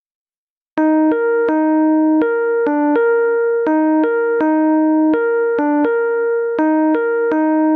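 Skype incoming-call ringtone: a short electronic melody of quick, piano-like keyboard notes, repeating in a loop. It starts a little under a second in.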